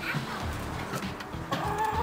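Domestic hens clucking, with a short call at the start and a drawn-out call starting near the end.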